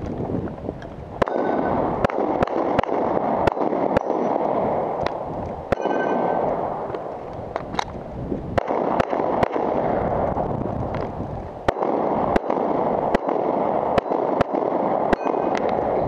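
Gunshots fired close by in rapid, uneven strings of roughly two a second, with a steady rushing noise between them.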